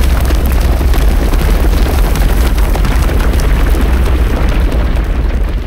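Cartoon stampede sound effect for a charging herd of horned dinosaurs: a loud, continuous rumble of many pounding feet over a deep low rumble, starting to fade near the end.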